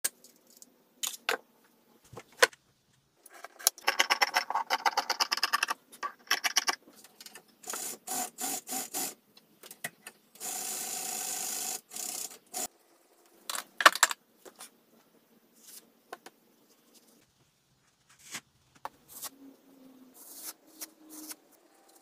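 Sewing-table handling sounds: sharp clicks, then a run of fast rattling clicks lasting about three seconds. About halfway, an industrial sewing machine runs steadily for about two seconds as it stitches a strip of fabric. Scattered taps and fabric rustles follow.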